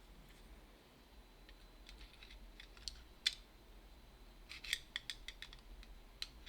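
Scattered small metallic clicks and ticks as the internal parts of a disassembled Abus 289/50 padlock are handled and fitted, with a sharper click about three seconds in and a cluster of clicks near the end.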